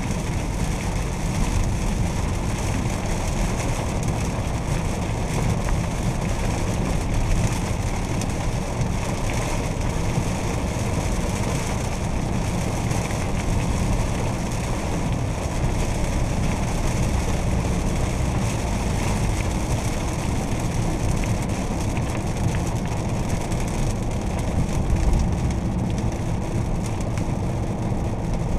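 In-cabin sound of a Fiat Toro's 2.0 turbodiesel driving on a wet road: a steady low drone of engine and tyres under an even hiss of tyres on water.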